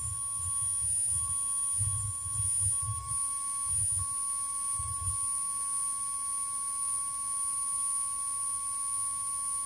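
Quiet passage of experimental tape music: a steady, high, sine-like electronic tone held over faint hiss, with irregular low rumbling pulses during the first five seconds.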